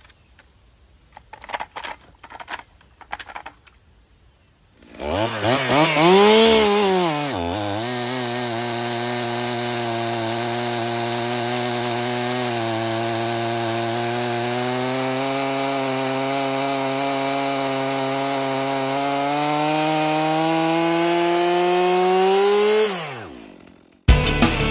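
Stihl chainsaw with a freshly hand-filed chain cutting through a large log. It comes in about five seconds in, revs up and drops as the chain bites, then runs steadily under load with its pitch slowly climbing. It winds down about a second before the end. A few faint handling clicks come before it.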